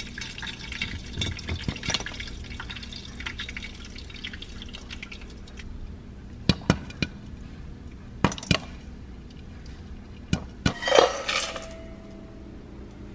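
Popcorn kernels popping in a lidded pot of hot olive oil over a sizzle, many small pops at first, then fewer and louder single pops. About eleven seconds in, the metal pot clatters against a steel bowl with a short ring as the popcorn is tipped out.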